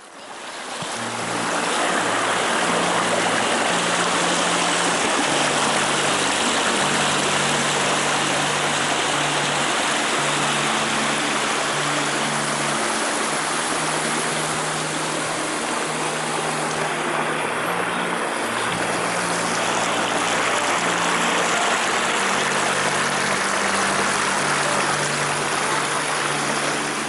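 Waterfall water rushing in a steady, loud roar that fades in over the first second or two. Low held music notes change underneath it.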